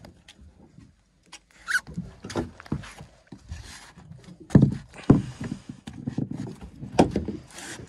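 Irregular knocks and thumps on a fishing boat, scattered through the stretch, the loudest about four and a half, five and seven seconds in.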